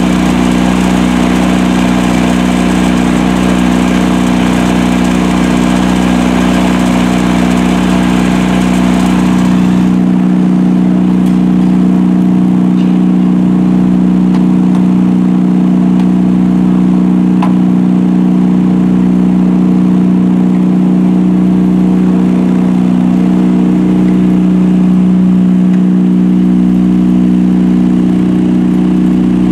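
Super-silenced engine-driven pump set running steadily, a constant low engine hum. With the soundproof canopy open the engine noise carries a bright hiss and clatter; about ten seconds in the canopy is shut and the sound turns dull, the higher noise dropping away while the low hum runs on.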